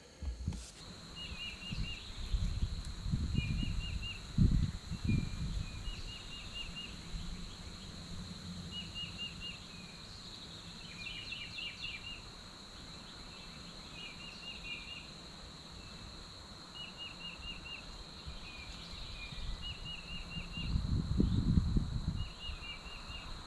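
A songbird repeating a short phrase of several quick, falling notes every second or two, over a steady high insect drone. There are low rumbles about four seconds in and again, loudest, near the end.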